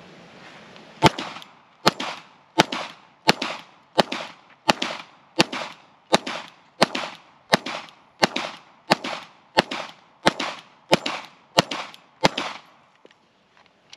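FN 509 9mm pistol fired in steady slow fire: seventeen shots a little under a second apart, each with a short echo, emptying its 17-round magazine.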